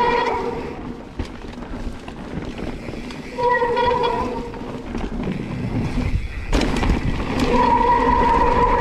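Mountain bike rolling fast down a dirt trail: tyres rattling and rumbling over the ground, with a steady high buzz that comes and goes, typical of a rear freehub ratcheting while coasting. A loud clatter about six and a half seconds in.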